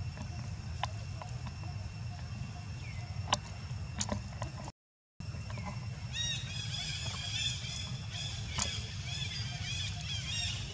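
Steady low background hum with a few sharp clicks and a brief dropout near the middle. Then, from a little past halfway, a quick run of short, high-pitched chirping calls, several a second, from a small animal.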